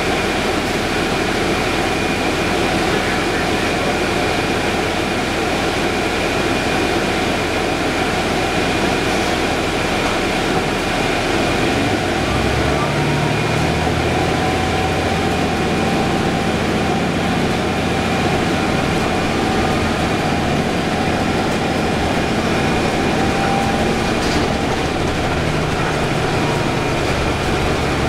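Cabin of a 2011 Orion VII hybrid transit bus: a steady drivetrain hum with a thin high whine, then about twelve seconds in a deeper engine note comes in and steps up and down as the bus pulls away and gathers speed.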